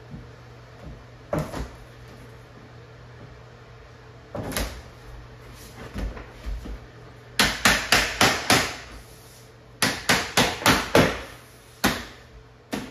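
Sharp knocks as a vinyl floor plank is tapped into place: a few single strikes, then two quick runs of five or six strikes each, about four a second, in the second half.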